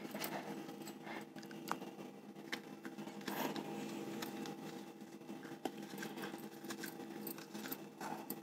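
Soft scraping and small scattered clicks as the tip of a vegetable peeler digs out the inside of a raw pointed gourd (parwal), over a steady background hum.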